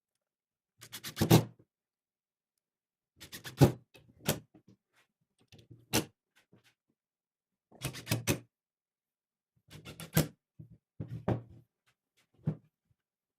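Pieces of wood knocking and clattering against each other and the bench as they are handled, in short clusters of sharp knocks about every one to two seconds.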